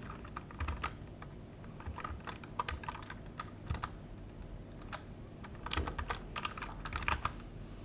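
Computer keyboard being typed on: short bunches of a few keystrokes separated by pauses, as a value in a software field is entered and deleted.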